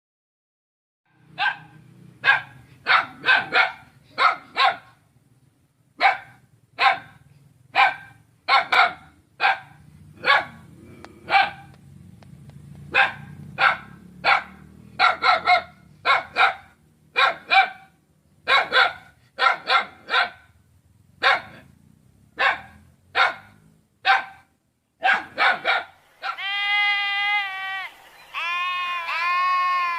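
A dog barking repeatedly, short sharp barks about one or two a second, after a brief silence at the start. Near the end the barking gives way to sheep bleating in long, wavering calls.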